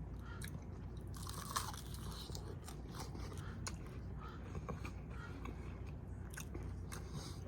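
A person biting into and chewing crispy fried chicken, with faint scattered crunches and small clicks over a low steady hum.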